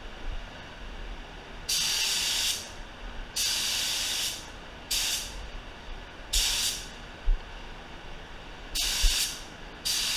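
Air spray gun spraying candy paint in short trigger pulls: about six bursts of high hiss, each half a second to a second long, with short pauses between passes, laying down a light first coat.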